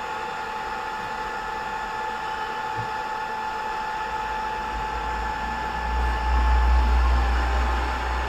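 Hot-air BGA rework station running its heating profile for a PCH chip removal: a steady blowing fan with a thin steady whine, joined by a low rumble that swells from about four seconds in.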